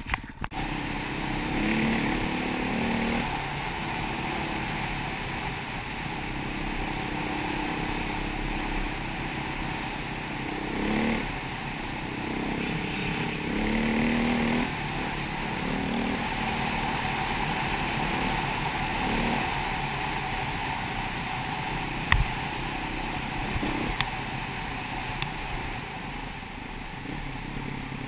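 KTM 525 EXC enduro motorcycle's single-cylinder four-stroke engine running on the move, its revs rising and falling with throttle and gear changes, over a steady rush of wind. A single sharp knock comes about three-quarters of the way through.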